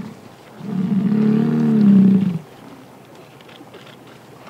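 American bison bull bellowing once in the rut: a single low, drawn-out call of nearly two seconds, starting about half a second in and loudest just before it stops. It is the bull's rutting display of strength.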